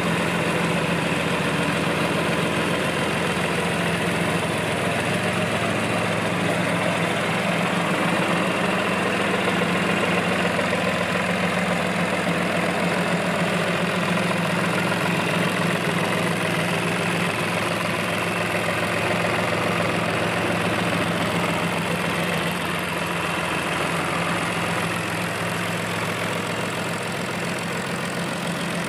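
John Deere 1040 tractor's three-cylinder diesel engine idling steadily.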